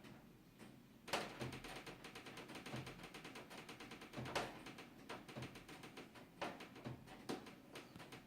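A series of sharp clicks and taps: a fast rattling run of them from about a second in, then scattered separate knocks.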